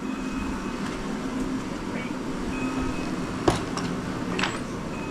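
Steady droning hum, with a sharp metallic click about three and a half seconds in and a few lighter clicks just after, as of hand tools on a motorcycle engine being dismantled.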